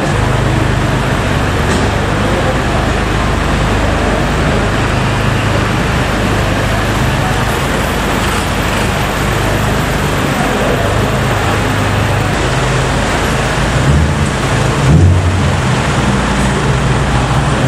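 Vehicle engines running steadily, a deep engine hum over general traffic noise, with a brief louder low swell about fifteen seconds in.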